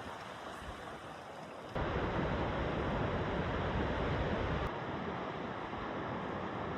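Waterfall swollen with spring runoff, rushing steadily. The sound jumps abruptly louder and deeper about two seconds in, and shifts again a little before five seconds.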